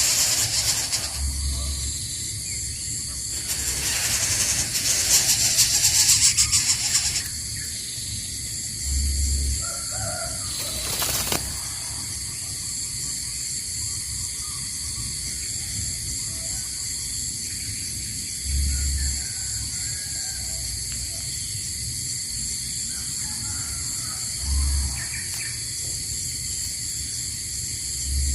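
Steady high-pitched insect drone outdoors, with a burst of rustling noise about four to seven seconds in and a few short deep hoots spaced several seconds apart.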